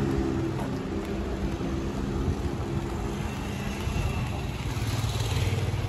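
Motorcycle engine running as the bike rides closer, growing louder toward the end.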